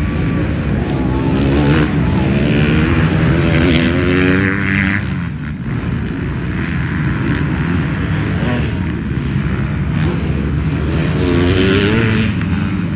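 Several MX2-class motocross bikes racing on a dirt track, their engines revving up and falling back, with climbing revs about two to five seconds in and again near the end.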